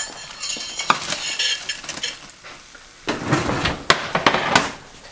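Breaded hogfish fillets sizzling in a hot glass baking dish. From about three seconds in, a serving spoon scrapes and clinks against the glass dishes as food is dished up.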